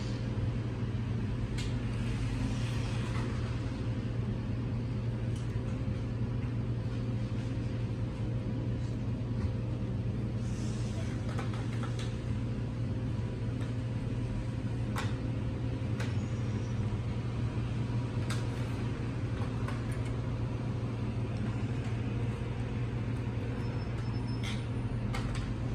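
A steady low mechanical hum with a few faint, scattered clicks.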